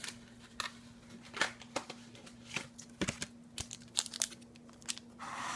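Foil wrapper of a Pokémon booster pack crinkling and tearing as it is opened by hand: irregular sharp crackles, then a short rushing crinkle ending in a sharp click.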